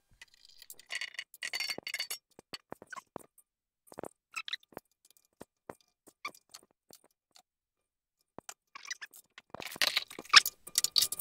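Scattered small metal clinks and clicks as lathe change gears and their fittings are handled by hand. The clinks come in a short cluster about a second in and a louder, denser cluster near the end.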